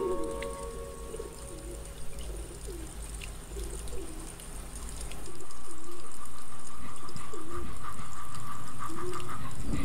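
Pigeon cooing imitated with a human voice: a run of short, repeated coos. About halfway through, a louder steady hum with a held whine comes in and carries on under the coos.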